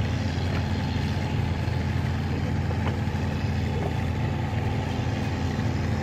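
Boat engine running steadily at constant speed, a low, even drone.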